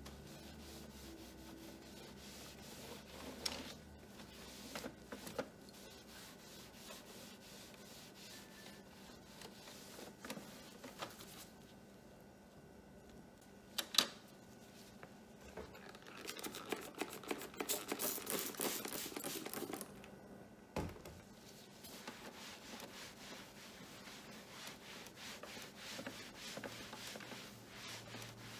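Cloth wiping the plastic casing of a printer: soft, continual rubbing with a few sharp taps, the loudest about halfway through. A stretch of brisker, louder rubbing follows soon after.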